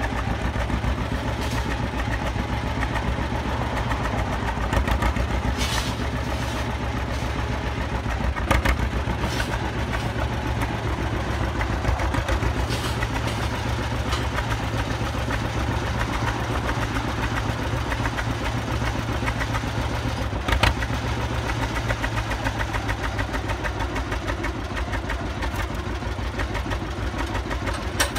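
John Deere two-cylinder tractor engine running at a steady, low idle with an even pulsing beat while the tractor is driven on a flatbed trailer. A sharp knock sounds about a third of the way in and another about three-quarters of the way through.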